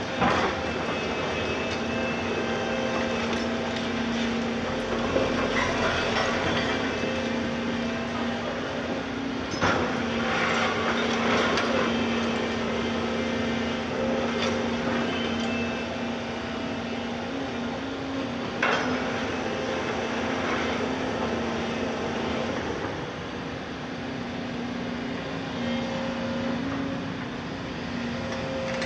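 Volvo tracked excavator's diesel engine running steadily under working load, while its attachment scrapes and crunches through demolition rubble, with a few sharp knocks of concrete and metal.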